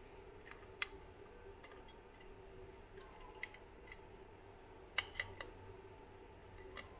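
Light metal clicks and taps from a Triumph four-speed gearbox's selector cam plate being worked into the casing past the spring-loaded detent plunger: a sharp click about a second in, a quick run of three near five seconds, and one more near the end, over a faint steady hum.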